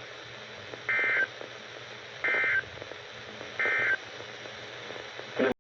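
Emergency Alert System end-of-message code: three short bursts of two-tone digital data tones, about 1.3 s apart, over faint radio hiss. A click comes near the end, then the audio cuts off.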